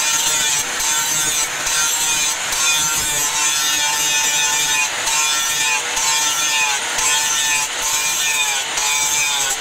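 Handheld angle grinder with an abrasive disc grinding the steel of a leaf-spring cleaver blade: a harsh, hissing grind over a steady motor whine. The whine sags in pitch now and then, and the grind breaks briefly about once a second.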